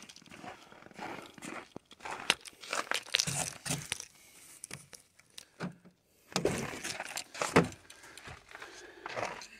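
Irregular crunching of snow underfoot and against a snow-covered car, with a sharp click and clunk about three-quarters through as the Hyundai Ioniq Electric's driver's door is opened.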